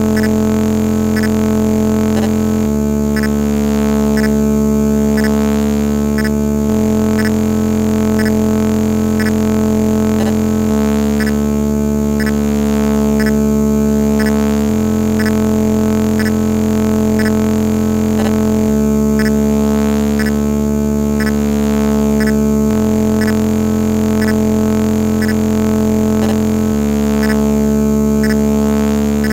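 Synthesized soundtrack of a 256-byte ZX Spectrum intro: a steady electronic drone whose low notes change about every four seconds, with faint regular ticks above it.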